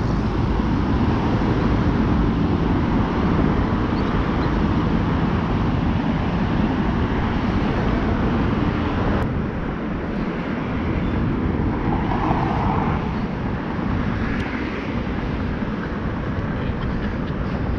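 Steady traffic noise from the road beneath the footbridge: a continuous rush of passing cars, with one slightly brighter passing sound about twelve seconds in.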